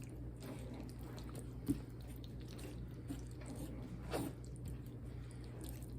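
Fork stirring creamy pasta in a microwave-meal tray: faint soft squishing and scraping, with a sharp click about two seconds in and a brief louder scrape around four seconds, over a steady low hum.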